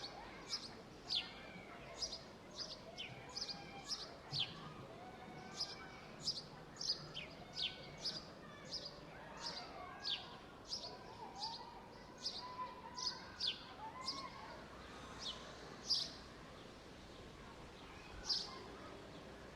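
Songbirds chirping over and over: short, sharp chirps that drop quickly in pitch, coming irregularly about once or twice a second, over faint background hum of the park.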